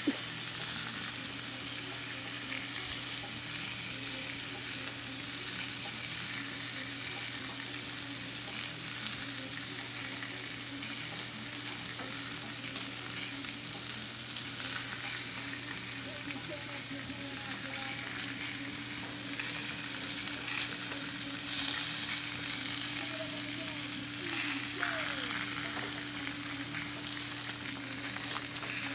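Hot dogs frying on a Blackstone flat-top griddle: a steady sizzling hiss with a low steady hum under it. The sizzle grows louder for a couple of seconds about three quarters of the way in, and there is one sharp click near the middle.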